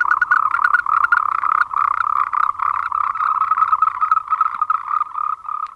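Chorus of Moltrecht's green tree frogs, the males calling in relay: a continuous run of rapid, pulsed croaks.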